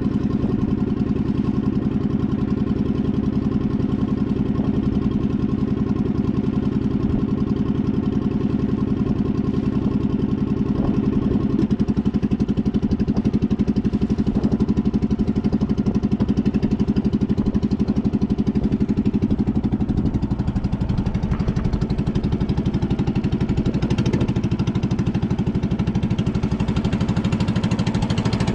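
Engine of a small motorboat running steadily underway, with a fast, even beat; its pitch shifts slightly about twelve seconds in and again about twenty seconds in.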